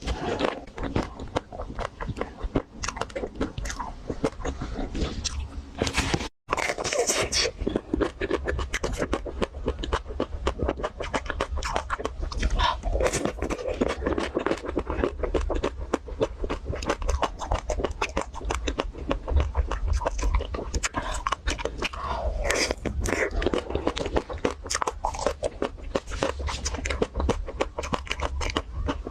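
Close-miked biting, crunching and chewing of a chocolate-coated Magnum ice cream bar: the shell cracks in dense crackles with wet mouth sounds. There is a brief dropout about six seconds in.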